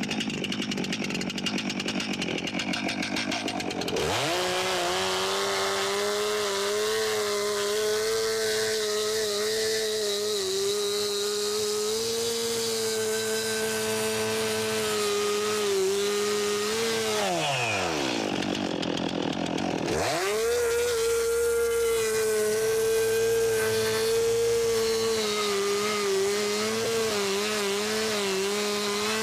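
Stihl 362 two-stroke chainsaw revving up about four seconds in and running at full throttle as it cuts through a wood slab. It drops back near the middle, then revs up again for a second cut.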